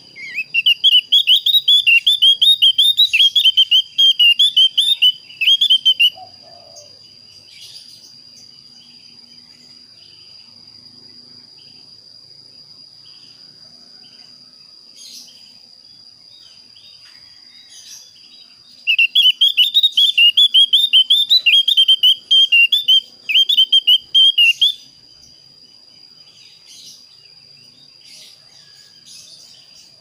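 Javan grey-throated white-eye (opior jawa) singing two bouts of fast, rolling warbled song, each about six seconds long: one at the start and another about 19 seconds in. It is the call with which the bird challenges a rival.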